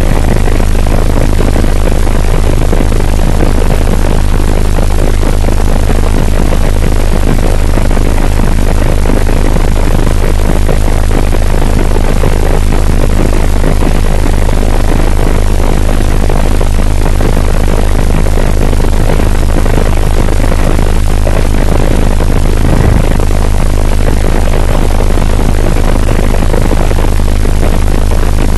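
Helicopter in flight, heard from inside the cabin: a loud, steady drone of rotor and engine with a deep hum under a broad rushing noise. There is a brief low knock a little over twenty seconds in.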